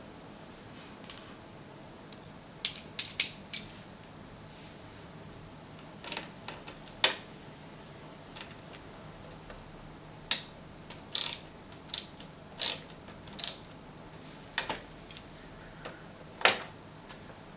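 Ratcheting screwdriver clicking in short irregular runs as it turns screws in a cassette deck's metal mechanism, with pauses between runs.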